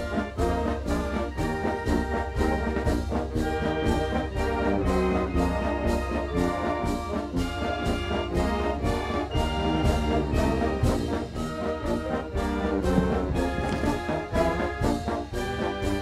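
Brass ensemble music playing steadily, with trumpets and trombones carrying a tune over a steady beat.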